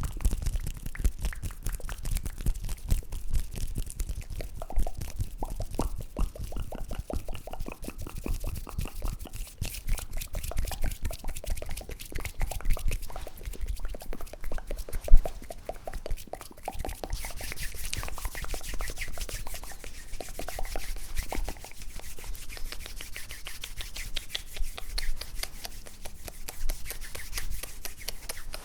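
Close-miked ASMR mouth sounds: a dense run of wet clicks and pops, many to the second, with one sharper pop about halfway through.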